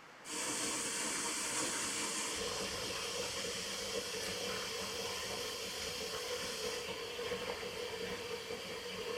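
Running water: a steady hissing rush that starts abruptly just after the start, with a faint steady hum under it. The brightest part of the hiss eases off about seven seconds in.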